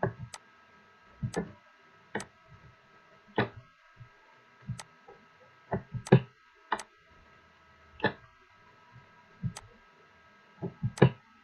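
Computer mouse clicking at irregular intervals, about a dozen sharp clicks, over a faint steady electrical hum.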